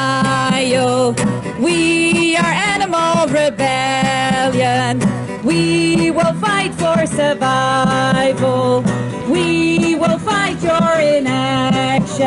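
A woman sings a melody into a microphone over strummed acoustic guitar chords, amplified through a small portable speaker.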